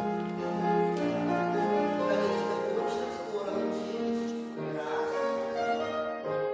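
Classical music playing: melodic instrumental accompaniment with sustained notes changing steadily.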